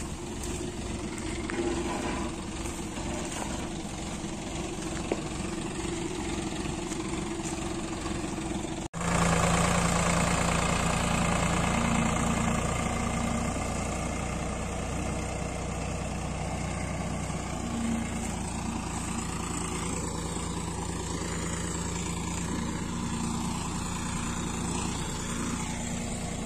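Sonalika tractor's diesel engine running as it pulls a trailer fully loaded with paddy straw. After a brief break about nine seconds in, the engine is louder and closer, then settles to a steady level.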